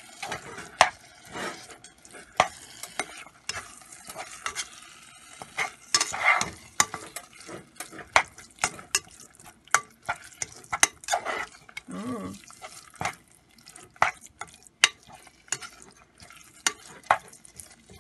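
Slotted metal spatula stirring ground-meat filling in a metal pot, scraping and knocking against the pot in irregular clicks, over the sizzle of the meat frying.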